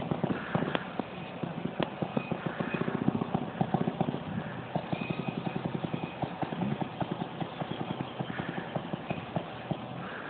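Newly fitted engine of a motorized rail trolley running, heard as a rapid, fairly even train of put-put pulses as the trolley travels along the track.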